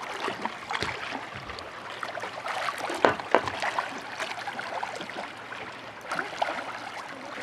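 Water lapping and sloshing around swimmers in shallow water, with scattered small splashes and two sharper splashes about three seconds in.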